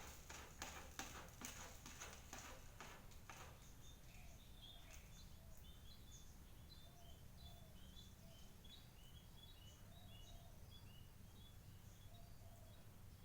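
Faint quick tapping for the first three seconds or so, then faint short high chirps repeating every half second or so, over a low steady hum.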